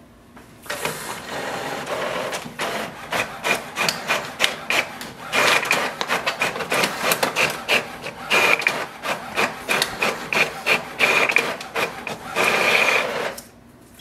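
HP OfficeJet Pro 9125e inkjet printer printing pages: paper feeding through while the print-head carriage runs back and forth in quick strokes. It starts about a second in and stops shortly before the end.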